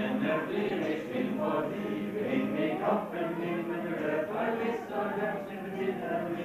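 Many people's voices at once, overlapping throughout.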